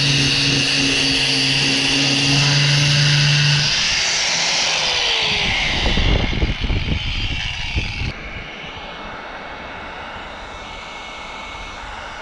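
Electric random orbital sander running against the canoe's plastic hull, with a steady hum and hiss, then shutting off about four seconds in and winding down with a falling whine. A couple of seconds of irregular low rumbling and bumps follow, then a heat gun blows steadily with a faint high whine while a plastic weld rod is melted onto the cracked hull.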